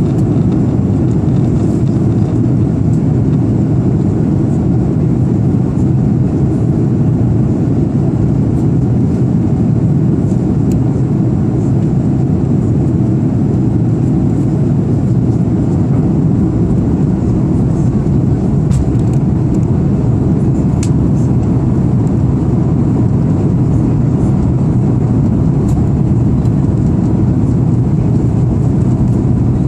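Steady cabin noise of an Airbus A340-300 in flight, heard from a window seat over the wing: a dense, even low rumble of its CFM56 engines and rushing air.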